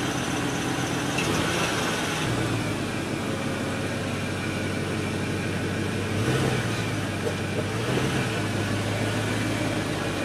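Toyota 4Runner's 4.7-litre V8 idling in park with a whining noise, louder underneath the vehicle. The engine speed rises briefly about two seconds in and twice more later. The owner can't place the whine and suspects it may come from the valves.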